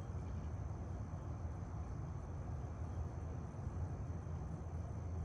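Steady low background rumble with a faint thin high whine, and no distinct clicks or knocks.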